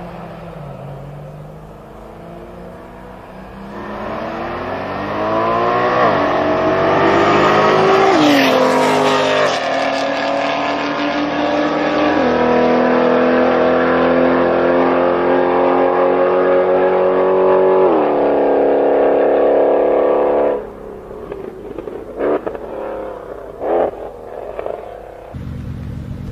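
Drag race launch: a Nissan GT-R and another performance car accelerate hard from the line, engine pitch climbing through each gear and dropping at three upshifts. The sound cuts off abruptly, followed by a few short revs and then a steady engine idle near the end.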